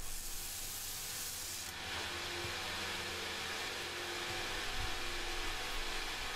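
Large bench grinder's wide abrasive wheel grinding the edge profile of a steel knife blank made from a rasp, a steady high hiss of metal on abrasive. About a second and a half in the blade is lifted away and the hiss drops out, leaving the grinder spinning freely with a steady whir.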